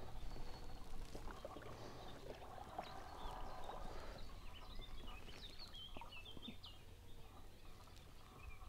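Faint birds calling, a run of short chirping notes clustered in the middle part, over a steady low rumble.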